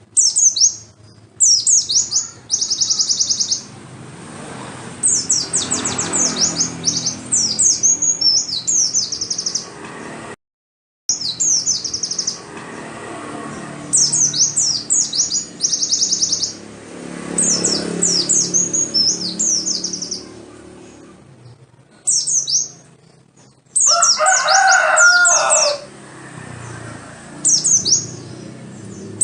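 White-eye (pleci) song: bursts of very high, rapid chirps and trills in repeated phrases, played as a lure to make a caged white-eye start singing. The sound cuts out briefly about a third of the way in, and a lower, harsher call breaks in near the end.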